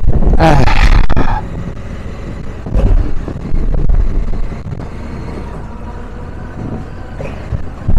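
Honda Africa Twin motorcycle under way: the engine note swells with a gliding pitch during the first second or so, surges again about three seconds in, and between these there is steady wind and road noise on the rider's microphone.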